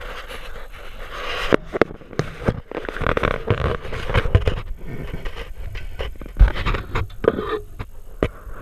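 Handling noise: irregular scraping, rustling and clicking as the recording phone is rubbed and knocked against the engine parts it is being moved among. No engine is running.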